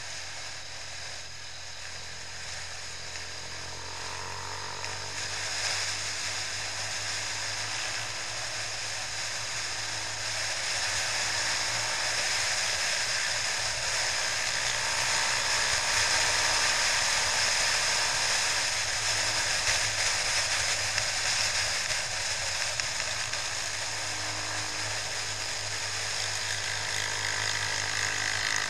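Wind rushing over a helmet-mounted camera on a moving motorcycle, with the engine's low hum running underneath. The rush grows louder toward the middle, then eases a little.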